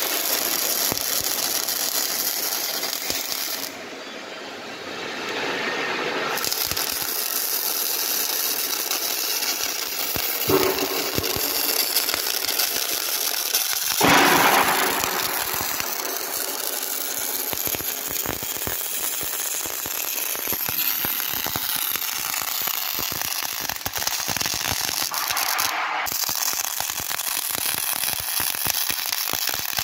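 MIG welding arc crackling and sizzling steadily as a bead is run along a steel beam. It drops away briefly about four seconds in and is louder for a moment around fourteen seconds in.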